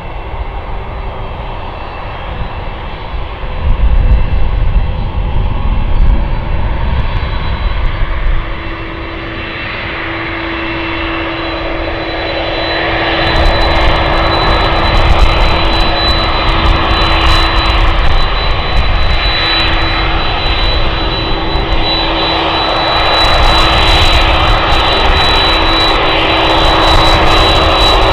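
Boeing 767-300's twin jet engines at taxi power as the airliner taxis up close: a steady high whine over a rumble. The sound swells about halfway through and again near the end as it comes nearer.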